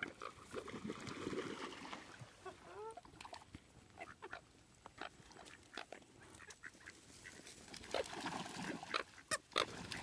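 A flock of American coots calling, with many short scattered calls and a few brief gliding calls about three seconds in.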